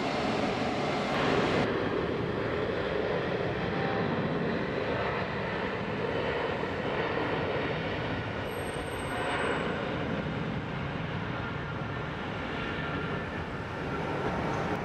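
Boeing 777-200LR's twin GE90 turbofan engines at takeoff thrust during the takeoff roll: a steady jet noise with no breaks.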